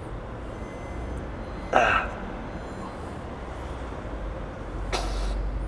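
A man's short pained vocal cry about two seconds in, and a brief breathy sound near the end, from someone undergoing metal-tool blading (scraping) therapy on the armpit and lat, over a steady low background rumble.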